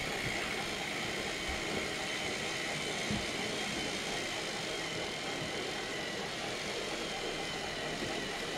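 Battery-powered Trackmaster toy train motor running steadily along plastic track, a continuous whirr with a faint high whine. A single soft knock about three seconds in.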